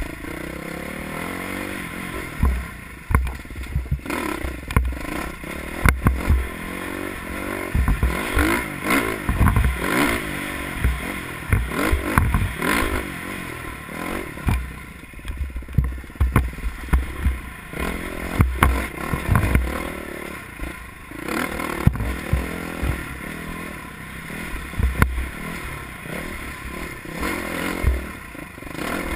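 Off-road dirt bike engine revving up and down over and over as it is ridden along a rough trail, with frequent sharp knocks and clatter.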